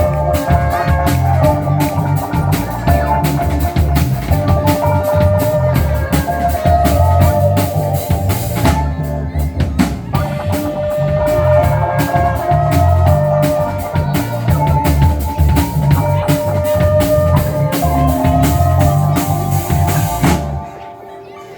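A band's song with a full drum kit: a steady beat of kick, snare and rimshot hits under bass and a held melody line. The music dips briefly near the end.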